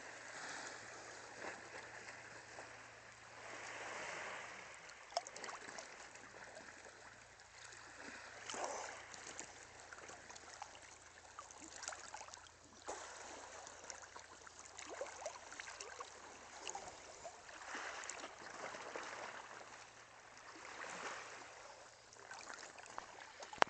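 Seawater lapping and sloshing right at the microphone, in swells that rise and fall every few seconds, with small splashes and a sharp click about five seconds in.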